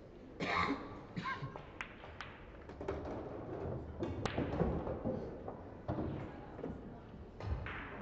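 Scattered knocks and taps in a large hall, with faint voices in the background.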